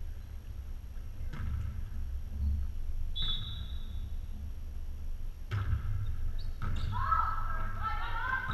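Indoor volleyball rally in a gym: the ball is struck with sharp smacks about a second and a half in, around three seconds and again about five and a half seconds in, over a low steady hall hum. Players shout calls in the last couple of seconds.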